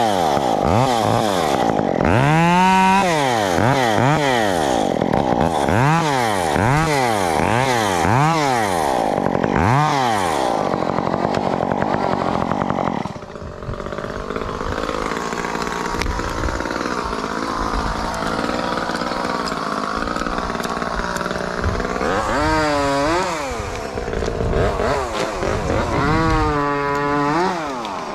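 Two-stroke Stihl chainsaw being revved up and down about once a second. About halfway through it drops to a steadier, quieter run, with two more rev-ups near the end.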